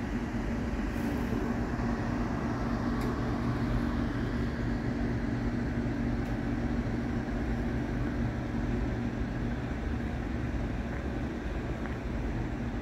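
Railway station ambience: a steady low rumble with a constant droning hum.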